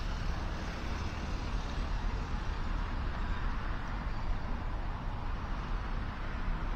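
Steady outdoor city ambience: a low rumble of distant road traffic with some wind on the microphone, with no distinct events.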